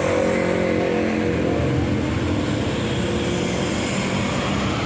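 Large bus diesel engine running under load as the bus pulls up a climb, with a steady rush of road noise; the engine note drops in pitch over about the first second.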